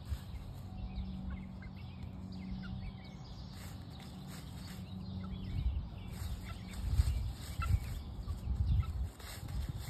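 Young hens making short, soft clucks and peeps as they forage. A low rumble on the microphone grows louder in the second half, over a steady low hum.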